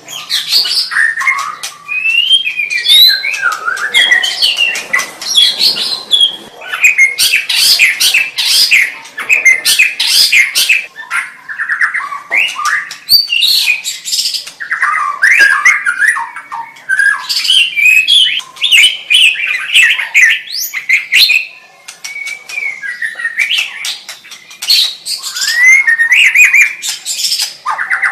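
White-rumped shama (murai batu) singing a loud, varied song: whistled gliding phrases mixed with dense runs of rapid chattering notes, with a couple of brief pauses.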